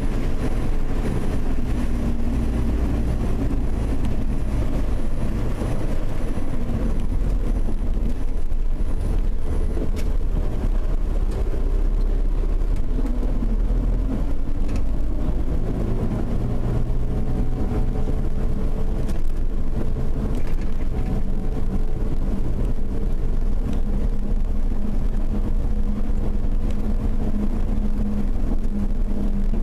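Car engine and road noise heard from inside the cabin while driving slowly, a steady hum whose pitch drifts gently up and down with speed.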